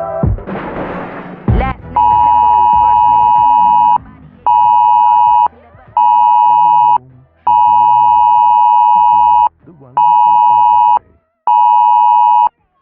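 Mock Emergency Alert System alert: a short burst of harsh noise, then a loud electronic tone near 1 kHz beeping six times in a long-short-short, long-short-short pattern.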